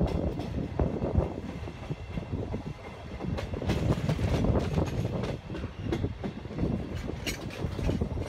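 Trenitalia regional train coaches running at speed, heard from an open window: a steady rumble of wheels on rail with scattered knocks and rattles.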